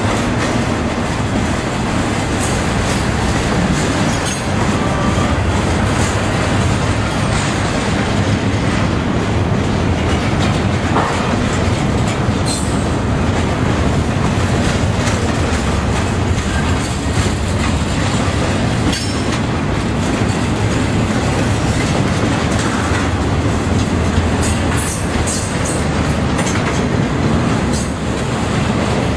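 Double-stack intermodal freight train's container well cars rolling past: a steady, loud rumble of steel wheels on rail, with occasional faint clicks.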